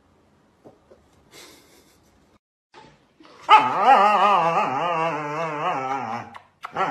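A dog gives a long, wavering, howl-like whine, its pitch wobbling up and down for nearly three seconds from about halfway in, then starts another just before the end.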